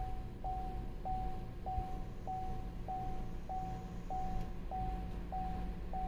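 Car warning chime of the 2018 Chevrolet Equinox beeping steadily with the ignition switched on: one short mid-pitched tone repeated a little under twice a second.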